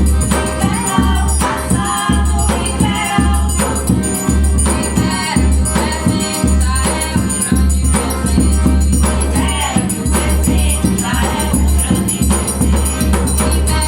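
Forró music: sung vocals over sanfona (accordion), guitar, a deep zabumba bass drum and a steady jingling triangle, played at a lively, even beat.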